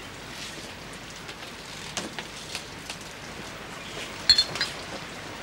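Steady rain patter with a few faint taps, and one sharp glass clink about four seconds in as a schnapps bottle and a small glass are handled.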